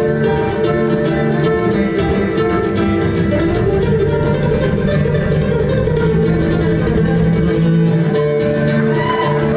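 Nylon-string flamenco guitar played live, a steady stream of rapid plucked notes ringing over sustained lower notes.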